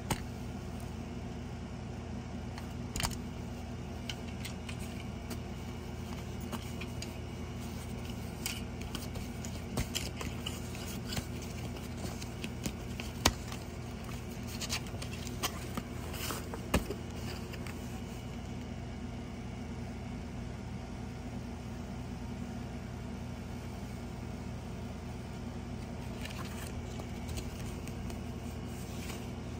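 Scattered sharp plastic clicks and short paper rustles of a cassette tape, its case and its folded paper lyric insert being handled. The clicks are loudest around the middle, with softer rustling near the end. A steady low hum runs underneath.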